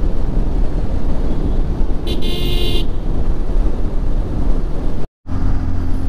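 Steady wind and road rumble of a motorcycle ride, with a vehicle horn honking once for under a second about two seconds in. Near the end the sound cuts out briefly, then a steady engine drone takes over.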